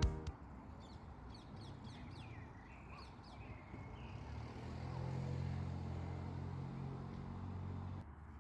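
Faint outdoor ambience with a few high bird chirps, then the low hum of an engine that swells about halfway through and cuts off suddenly near the end.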